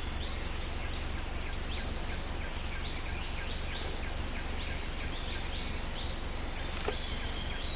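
Forest ambience: an unseen creature's short, high, arching chirps repeat about one to two times a second over a steady low rumble.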